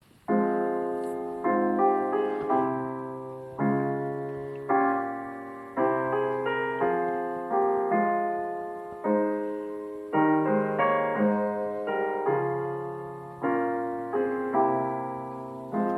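Solo piano playing slow chords, each struck and left to ring and fade, roughly one a second.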